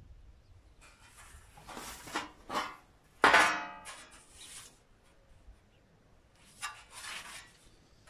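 Bent sheet-metal panels being handled: scraping and rubbing of the metal, with one louder metallic clatter about three seconds in that rings briefly, and more rubbing near the end.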